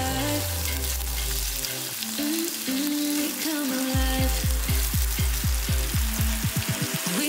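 Pieces of unsmoked bacon sizzling in hot oil in a wok with chopped scallions, stirred with a silicone spatula.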